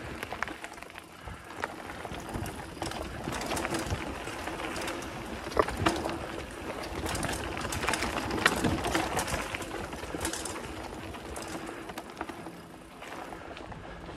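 Specialized Stumpjumper mountain bike rolling fast over a dirt singletrack: tyres on dirt and the frame and chain rattling over the bumps, with the rear hub's freewheel buzzing as it coasts. Two sharper knocks come from bigger bumps, about halfway through and again a few seconds later.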